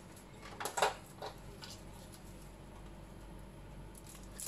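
Short handling clicks and rustles: a small cluster about a second in, the loudest, and one more near the end, as test leads and a small backlight tester are handled over a TV's metal back panel.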